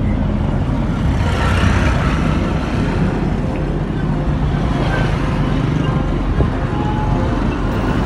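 Steady road traffic noise, with motorcycle engines coming along a gravel road.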